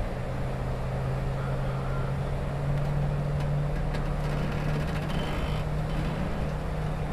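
A motor vehicle's engine idling, a steady low hum whose pitch rises slightly partway through and then holds.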